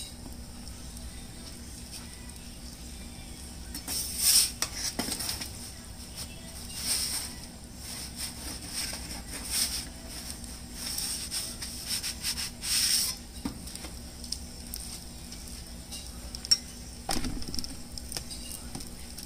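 Metal turning peel scraping across the hot pizza stone of a propane-fired Solo Stove Pi Prime oven as the pizza is turned, in several short rasping scrapes about 4, 7, 10 and 12 seconds in. Under them runs the steady low rush of the gas burner.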